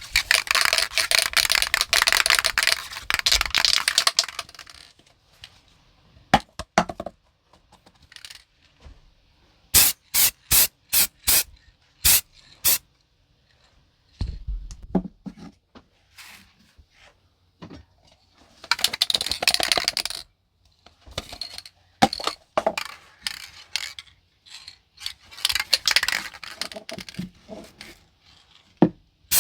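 Spray paint aerosol can being shaken, its mixing ball rattling in long runs. Between the shakes come several short, sharp bursts of spray.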